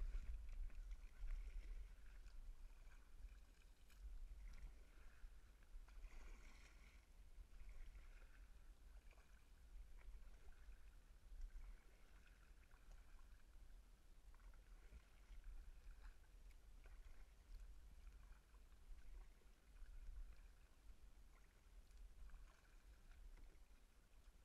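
Kayak paddle strokes in water, faint and muffled through a sealed waterproof camera housing, a soft swish about every two seconds over a low rumble.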